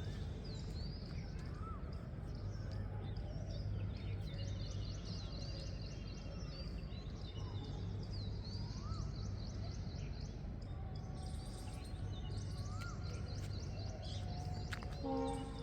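Many small birds chirping and calling in quick repeated notes, over a steady low background rumble. A short pitched tone sounds near the end.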